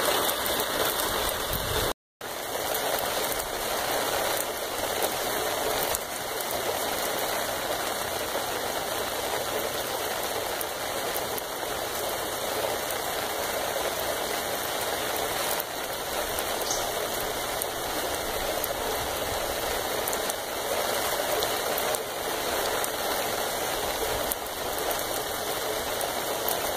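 Steady rain falling on a concrete patio, an even hiss of drops. The sound cuts out briefly about two seconds in.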